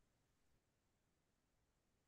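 Near silence: a muted webinar audio feed.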